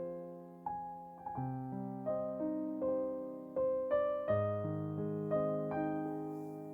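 Slow, gentle solo piano music: single melody notes struck about every half second over sustained low chords, each note dying away.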